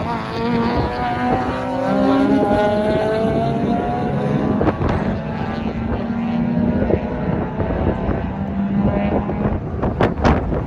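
Honda VTEC car engine revving under acceleration on a race track, its pitch climbing over the first few seconds, then running on at steady revs. Two sharp clicks near the end.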